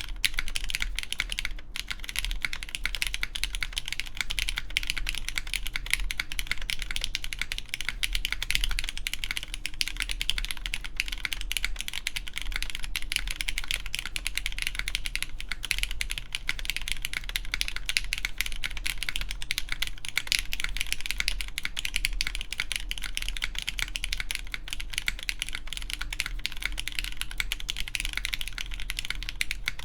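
Continuous typing on a RAE ADAMAS mechanical keyboard with lubed Cherry MX Black Clear Top ("Nixie") linear switches, GMK keycaps and a full aluminium plate: a steady, dense stream of keystrokes without a break.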